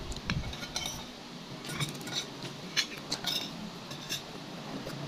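Metal spoon clinking and scraping against a bowl of rice and fish while eating, in scattered light taps a second or so apart.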